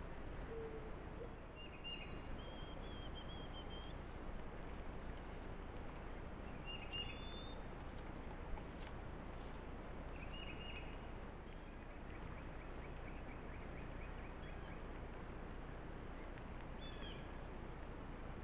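Small birds chirping now and then over a steady hiss, with a faint run of quick repeated notes in the middle and one sharp click about eight seconds in.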